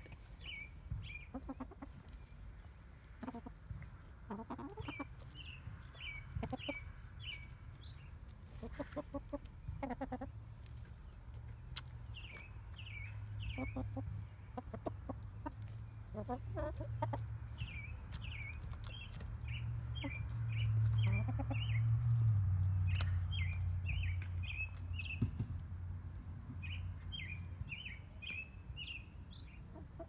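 Backyard hens clucking and chirping in short bursts of small high calls while they peck, with scattered sharp taps. A low rumble swells about twenty seconds in.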